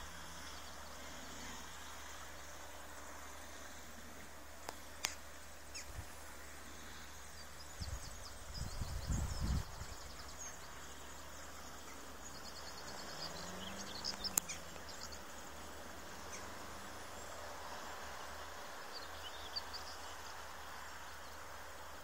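Open-field ambience: a steady low background noise with faint, short, high bird chirps, most of them a little past the middle. A brief low rumble comes about eight seconds in, and a few sharp clicks stand out.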